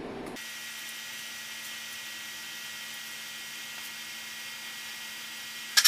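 Steady background hiss with a faint low hum, and right at the end a short, sharp spritz from a trigger spray bottle of degreaser.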